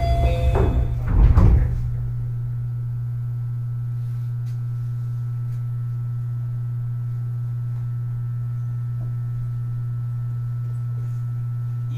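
Steady low electrical hum with a faint thin whine above it, heard inside a Keio 8000 series train standing at a station with its doors open. In the first second or so, chime tones sound and the sliding doors open, ending in a thump about a second and a half in.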